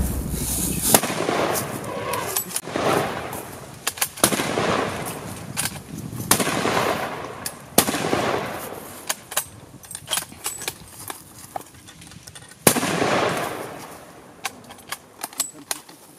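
Footsteps crunching through dry leaves and brush in swells of about a second, with many sharp twig snaps and clicks.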